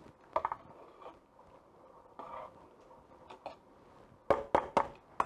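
Metal tongs knocking and clicking against a stockpot as boiling perciatelli is stirred: a few light clicks near the start, then four sharp knocks in quick succession near the end.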